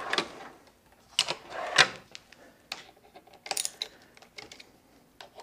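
Sharp metal clinks and rattles of hand tools, loudest about a second and a half in: a 10 mm socket and ratchet handled at a tool chest, then a quick run of ratchet clicks at the motorcycle's battery terminal bolts.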